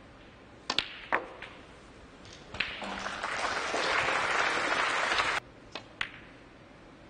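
Snooker balls clicking: sharp knocks of the cue striking the cue ball and balls colliding. Audience applause begins about two and a half seconds in and cuts off suddenly about three seconds later, followed by two more clicks.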